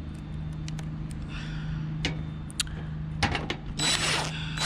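Impact drill driving screws in short bursts, with a few sharp clicks before the bursts. A steady low hum runs underneath.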